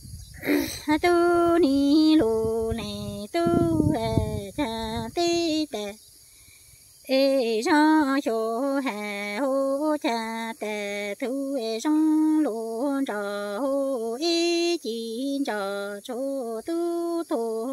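A woman singing Hmong kwv txhiaj, unaccompanied sung poetry, in long held notes that waver at their ends, with a pause of about a second near the middle. A low rumble runs under the first few seconds.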